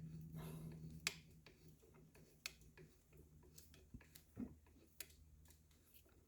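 Faint, scattered small clicks and ticks of a 4 mm Allen wrench and the stock's takedown screw being handled and turned on a Ruger 10/22 rifle, over a faint low hum that fades about a second in.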